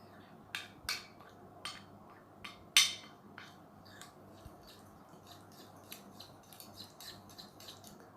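A spoon stirring an oily seed-and-oil paste in a container, clinking and scraping against its sides. The loudest clink comes about three seconds in, followed by a run of lighter taps.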